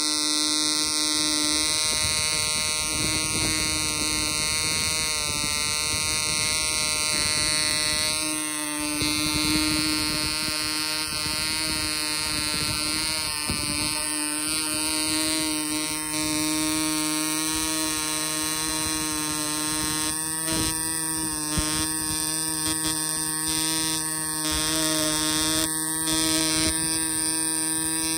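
AE 0.2 cc two-stroke model diesel engine running under its own power and turning a small propeller: a steady high-pitched buzz, its pitch shifting slightly twice.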